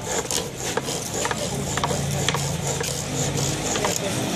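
Bow lathe turning a small piece of wood: the bow string spins the work back and forth while a hand-held chisel scrapes and cuts it, a rasping scrape in short repeated strokes about two a second.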